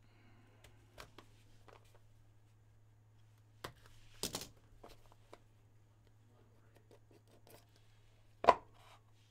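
A trading card box being cut open and handled: a few light clicks from the cutter on the seal, a short rasping scrape about four seconds in, and a sharp clack near the end as the box is pulled open, over a steady low hum.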